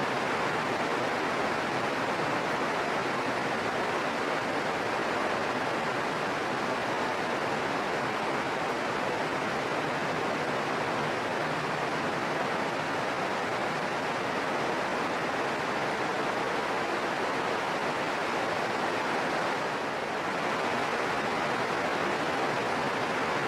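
Steady rainfall, an even unbroken hiss, briefly a little softer near the end.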